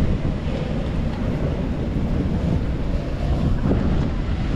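Steady wind buffeting the microphone over the wash of ocean waves.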